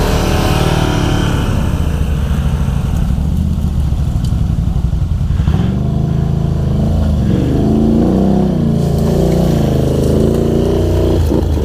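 ATV engines running, with the revs rising and falling in the second half as a quad climbs through thick brush.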